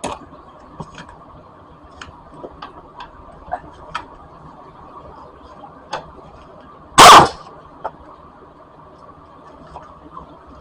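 Irregular clicks and light metallic knocks of a ratchet and 13 mm socket working on bolts in a car's engine bay, with one loud, brief clatter about seven seconds in.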